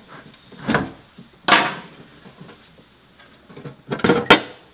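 Clunks and knocks of metal parts being handled as a homemade rotary welding table is taken apart: a sharp knock about a second and a half in, then a quick cluster of clatters near the end, the loudest of them right at the end.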